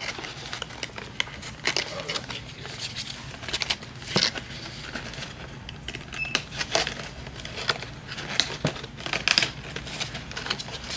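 Crinkling packaging with irregular light clicks and taps as small party-favour items are handled and packed into treat bags.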